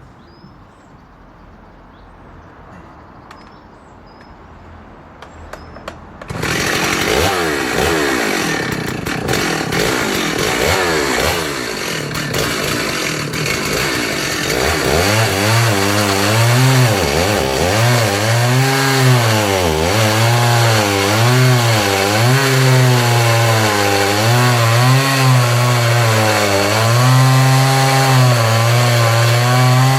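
Stihl 038 AV Super 61cc two-stroke chainsaw starting abruptly about six seconds in, then running hard with its engine pitch repeatedly rising and falling. It is running a very tiny bit rich.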